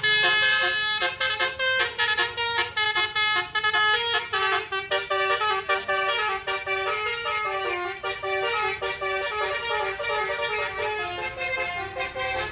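A tour bus's basuri-style telolet musical air horn playing a fast melody, many short notes stepping up and down in quick succession without a break.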